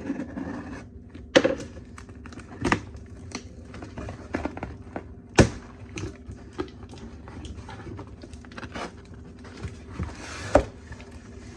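A shipping package being opened and its packing material handled by hand: scattered taps, thunks and crinkling, with three louder knocks spread through.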